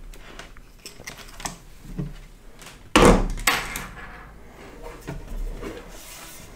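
Handling noises on a workbench: a few light clicks and taps, a loud hard knock about three seconds in with a second, shorter knock just after, then a brief rubbing sound as the metal-cased soldering hot plate is lifted and turned over near the end.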